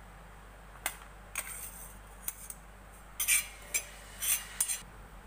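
Steel spoon scraping and clinking against a stainless steel pan while stirring grated coconut as it dry-roasts. About seven short scrapes, the loudest clustered between about three and four and a half seconds in.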